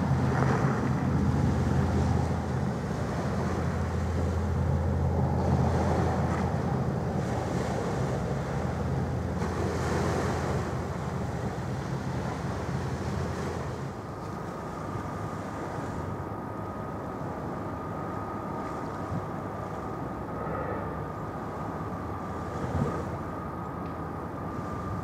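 Low drone of a large ro-ro passenger ferry's diesel engines as the ship passes close by, with wind noise on the microphone. About halfway through, the drone drops away and a thin, steady high whine carries on.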